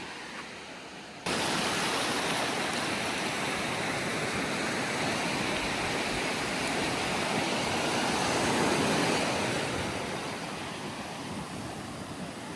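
Ocean surf rushing on a beach, a steady wash of noise that cuts in abruptly about a second in, swells about two-thirds of the way through, then eases.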